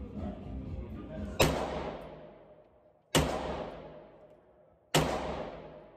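Three single shots from a semi-automatic rifle, evenly paced less than two seconds apart, each ringing out in a long echo in the enclosed indoor range.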